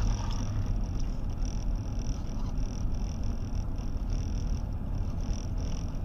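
Steady low rumble inside a car's cabin, with no sudden events standing out.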